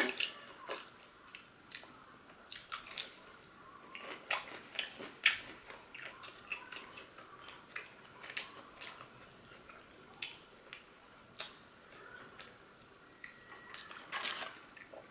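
Close-up chewing and biting of fried chicken: soft, wet mouth sounds broken by many small, irregular clicks and crunches.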